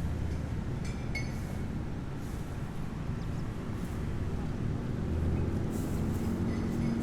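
City street traffic: a steady low rumble of vehicle engines, with a couple of brief high-pitched tones about a second in and again near the end.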